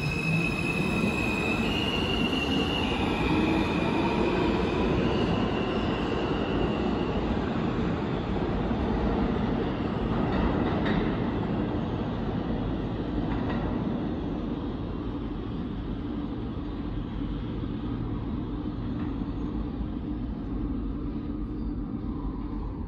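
New York City subway J train pulling away: its propulsion whine steps up in pitch over the first few seconds, then gives way to a steady wheel-on-rail rumble with a couple of clacks over rail joints. The sound slowly fades toward the end.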